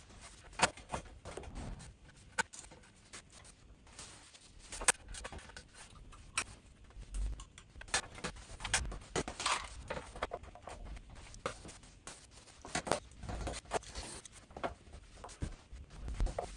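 Irregular clicks, taps and knocks of hand work on the Sansui AU-907MR amplifier's chassis and covers as it is being reassembled.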